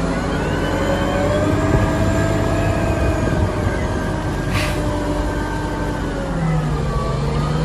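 Caterpillar 990 wheel loader's diesel engine running under load while it lifts and tips a bucket into a dump truck, its pitch rising and falling slowly. A short sharp clank comes about halfway through.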